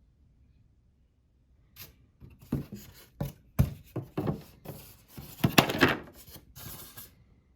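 Packaging being handled and pulled apart: an irregular run of rustling and scraping noises with a few sharp knocks. It starts about two seconds in and stops about a second before the end.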